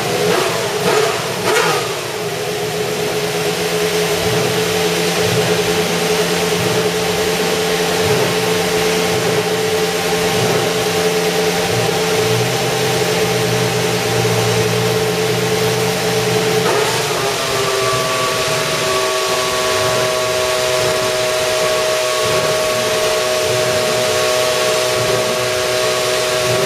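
Mercedes-AMG F1 W07 Hybrid's turbocharged V6 running stationary. A couple of quick revs rise and fall in the first two seconds, then it holds a steady fast idle, stepping up to a higher steady engine speed about two-thirds of the way through.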